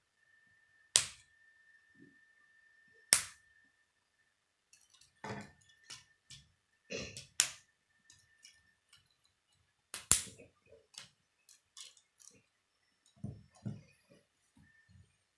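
Plastic K'nex rods and connectors snapping into place under hand pressure: several sharp clicks a few seconds apart, with softer knocks and rattles of parts being handled in between.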